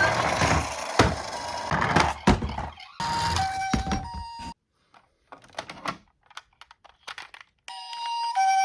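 A few knocks and rustling noise, then a Japanese-style two-tone ambulance siren alternating between a higher and a lower note. It stops after about a second and a half and gives way to a few faint clicks, then the siren starts again near the end.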